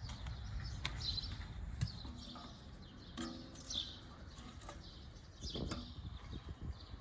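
Small birds chirping repeatedly, with a few light knocks and clatters of split kindling sticks being placed into a rusty steel fire pit.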